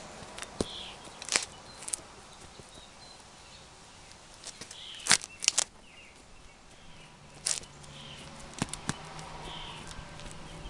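Black leather Ecco dress shoes tapping and scuffing on a concrete porch floor: a few scattered sharp taps, with a quick run of three about halfway through. Small birds chirp briefly now and then.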